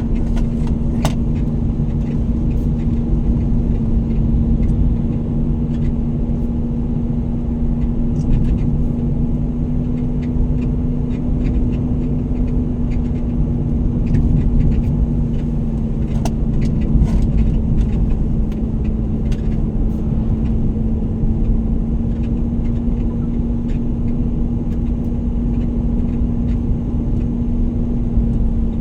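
Motor vehicle running at a steady speed: a constant low rumble with a steady engine hum, and a few faint clicks and rattles scattered through it.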